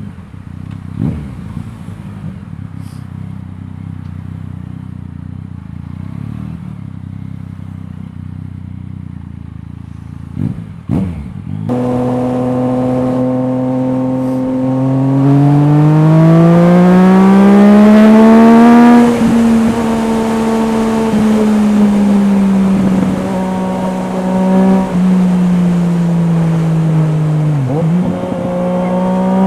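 Yamaha MT-09's 847 cc inline three-cylinder engine through an Akrapovič exhaust, running at a low steady note for about ten seconds, then the throttle opens and the engine note climbs steadily in pitch for several seconds before settling into a steady cruise. Near the end the pitch dips briefly and picks up again, with wind noise under the engine once under way.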